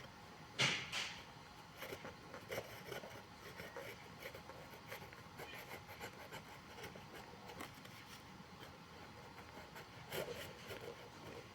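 Hand work on a shoe sole: rubbing and scraping strokes, with one sharp, loud scrape about half a second in, lighter strokes after it, and a firmer stroke near the end.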